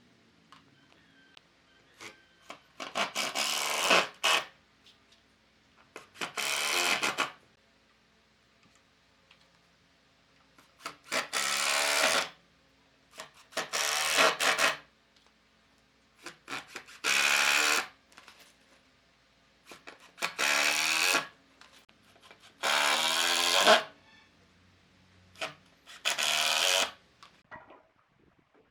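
A hand tool scraping along wood in eight long strokes, each about a second, with a pause of a couple of seconds between them: wood being shaved or rasped down by hand.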